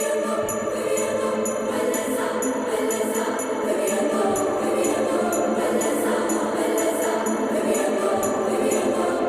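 Background music with steady jingling bells keeping a regular beat over held tones.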